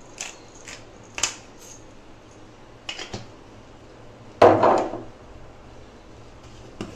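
Light clicks and taps of a spice bottle as black pepper is sprinkled over a plate of raw chicken, then a louder clatter about four and a half seconds in as a kitchen container is knocked or set down on the stone counter.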